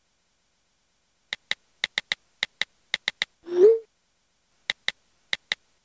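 Chat-app sound effects: a string of short typing clicks, mostly in pairs, then a short message-sent tone that slides up in pitch about three and a half seconds in. More typing clicks follow near the end.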